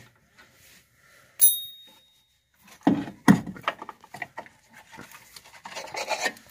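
Metal-on-metal handling of a brake caliper being worked off its rotor. There is a sharp, ringing clink about one and a half seconds in, then a run of knocks, clanks and scrapes near the end.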